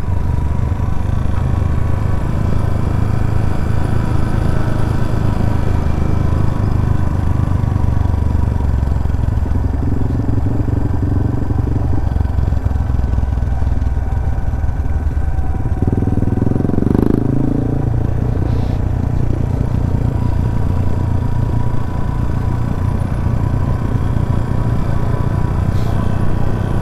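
Suzuki GS 150 SE motorcycle's 150 cc single-cylinder four-stroke engine running steadily under way, with a brief louder stretch about 16 seconds in.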